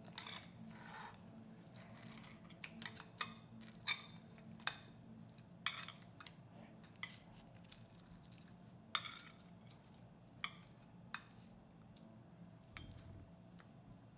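Metal chopsticks clicking against each other and a ceramic plate while tearing a crisp potato pancake into pieces: about a dozen sharp, separate clicks at irregular intervals.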